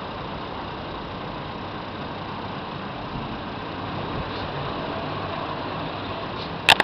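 Heavy truck diesel engine running steadily, with a sharp click near the end.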